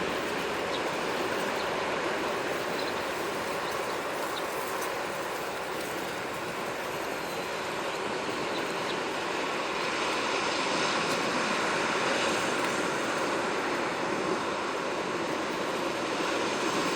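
Sea waves washing on the shore: a steady rushing that swells and eases slowly.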